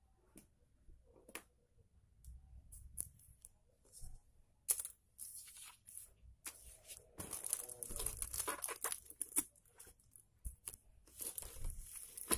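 Clear plastic wrapping on a parcel crinkling and tearing as hands pull at it: scattered crackles at first, then a denser run of crinkling and ripping from about seven seconds in.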